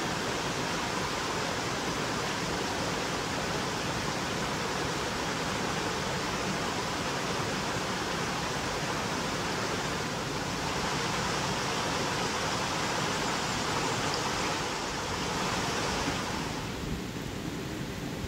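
A steady rushing noise, even and without any distinct calls or knocks, that turns quieter and duller near the end.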